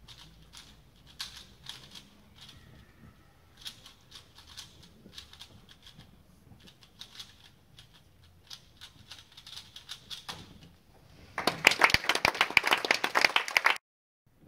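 3x3 speedcube being turned fast: light, irregular plastic clicking. Near the end a much louder burst of rapid clatter lasts about two seconds and cuts off suddenly.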